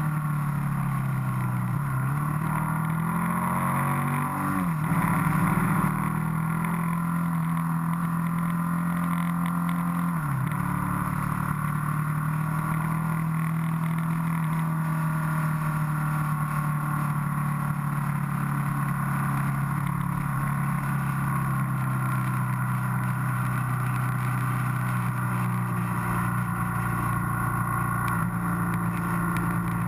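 Motorcycle engine heard from the riding bike itself. Its pitch drops and climbs again a few times in the first ten seconds as the rider changes gear and rolls the throttle through bends, then holds steady at cruising speed.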